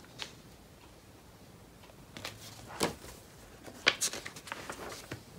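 A few soft rustles and taps of a picture book's pages being handled and turned, over quiet room tone.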